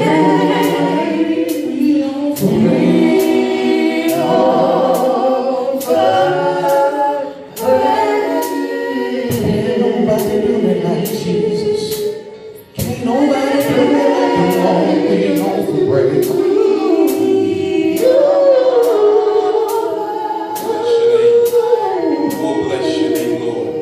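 Gospel choir singing with a sharp, steady beat about twice a second. The singing drops away briefly twice.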